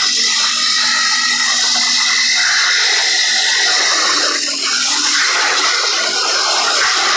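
An ATV being ridden at speed over sand: a steady, loud rush of wind and tyre noise, with the engine's steady tone faintly underneath.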